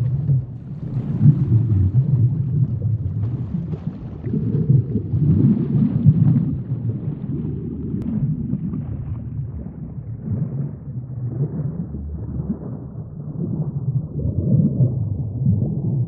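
Sinking-in-the-sea sound effect: a muffled, deep underwater rumble with slow swells and gurgling. The higher hiss thins out over the second half, leaving mostly the low rumble.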